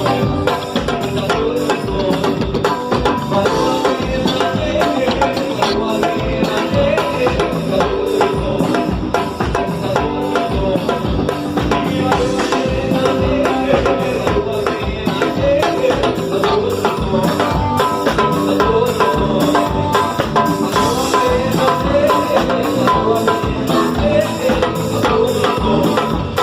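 Band music with a drum kit and hand percussion driving a fast, steady beat under pitched instruments.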